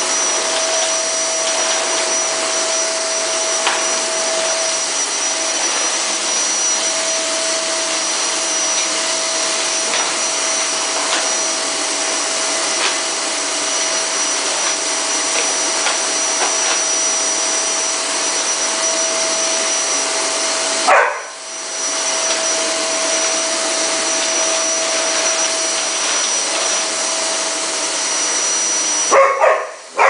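Vacuum cleaner running steadily, a rush of air with a constant whine in it. A dog barks once about two-thirds of the way through and again near the end.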